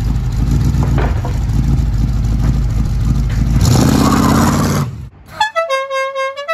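Classic muscle car's engine rumbling loudly, swelling to a rev with a rush of noise in the fourth second before cutting off. A short tune of horn-like notes at changing pitches follows near the end.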